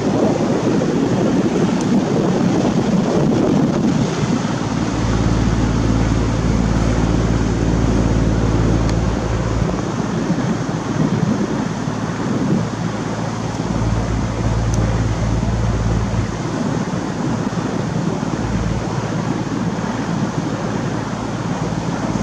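Engine of a two-masted sailing boat running steadily under way, a low hum over a wash of water and wind, with gusts of wind buffeting the microphone now and then.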